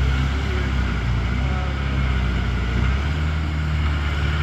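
A heavy vehicle engine running steadily with a low, even rumble that shifts a little in the middle.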